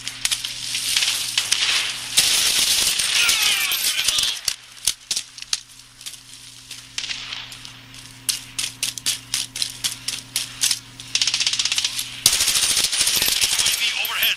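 Gunfire from a first-person shooter video game: bursts of rapid automatic rifle fire, with a stretch of more spaced single shots in the middle, over a steady low hum.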